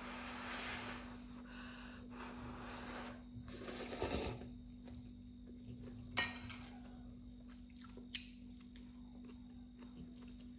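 Instant ramen noodles being slurped off a fork, loudest about four seconds in, then quieter chewing with a couple of sharp clicks of a metal fork against the pot. A steady low hum runs underneath.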